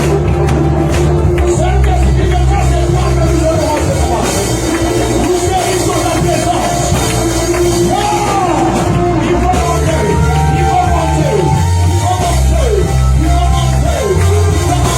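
Live worship music: a band with a steady bass line under a gliding sung melody, with voices of the congregation mixed in.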